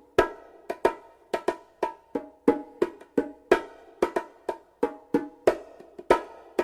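Wooden percussion blocks struck in a quick, uneven rhythm, about three short, sharp hits a second at a few different pitches, each dying away quickly.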